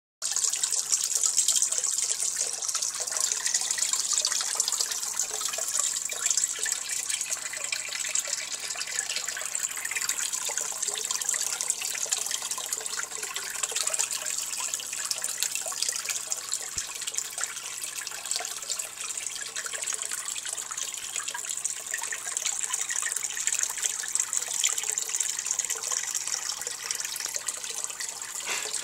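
A steady stream of water splashing into a turtle tank's water, a continuous high hiss that runs on without a break. A faint steady low hum sits underneath.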